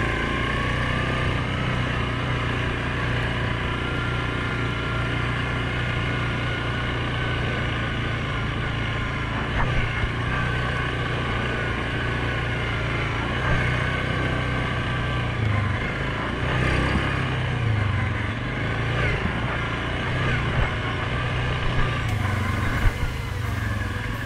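A 2019 Suzuki KingQuad 750 ATV's single-cylinder four-stroke engine running steadily while riding along a dirt trail, with a few brief knocks.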